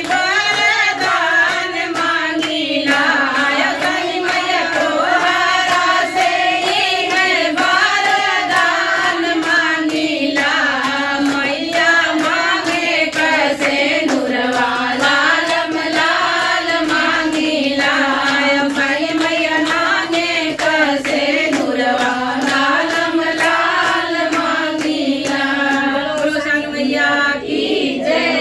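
A group of women singing a devotional folk song together in unison, keeping time with steady hand claps.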